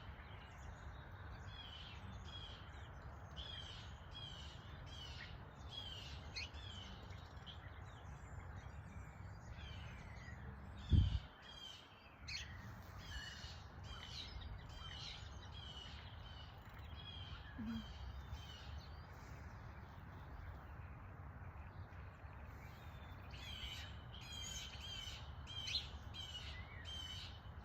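Wild birds calling, short chirps repeated every half second or so throughout, over a low outdoor background. One loud low thump about eleven seconds in.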